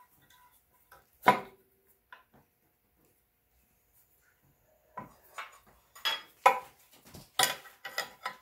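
Steel bearing puller and wrench clinking together: one sharp clink about a second in, then a run of irregular metal clinks and clanks from about five seconds in, as the wrench is fitted to the puller to draw the front output shaft bearing out of an NP231 transfer case.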